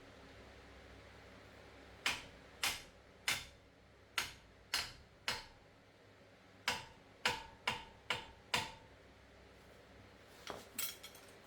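Sharp metallic clicks or taps from hand tools on the brake parts: six about half a second apart, a pause, then five more with a faint ring, and a few softer clicks near the end.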